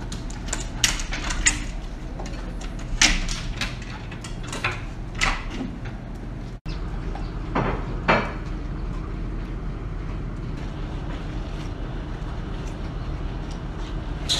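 Alaskan malamutes biting into and crunching raw cucumbers: a run of sharp, separate crunches, then two more a little later over a steady low hum.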